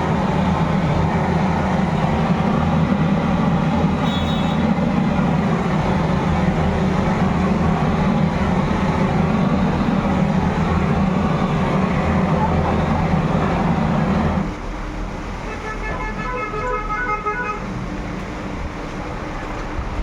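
A steady motor running with a low hum, cutting out about three-quarters of the way through; then a horn beeps in a quick series of short toots.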